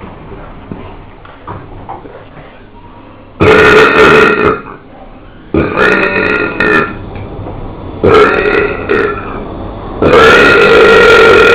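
A person belching loudly four times, the first about three seconds in; the last is a long, drawn-out belch starting near the end.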